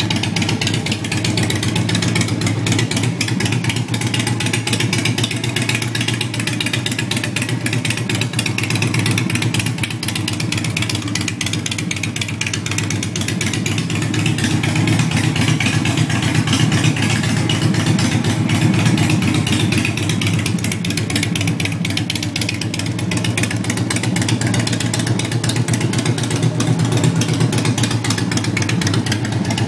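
Harley-Davidson Softail Deuce's V-twin idling steadily through a Vance & Hines 2-into-1 exhaust with the baffles removed.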